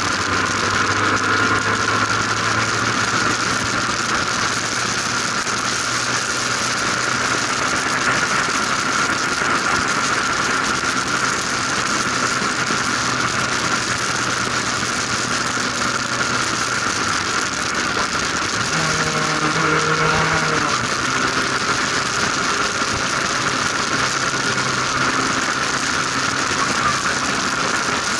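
Formula RP1 single-seater race car's engine running at speed, heard from the open cockpit under a steady rush of wind and a steady high whine. The engine note shifts about two-thirds of the way through.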